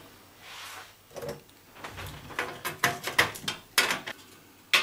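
A run of irregular clicks and light knocks as a circuit board and its metal bracket are handled and worked loose inside a Kenwood stereo receiver's sheet-metal chassis.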